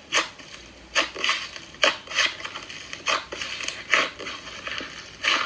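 A series of about ten irregular clicks and knocks over five seconds, with scuffing between them, like small hard objects being handled.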